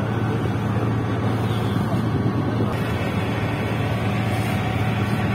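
Vehicle ferry's engine running steadily under way, a low, even drone.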